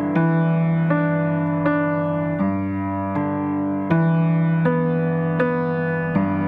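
Background music: a gentle keyboard or electric piano melody with notes struck about every three quarters of a second over sustained chords.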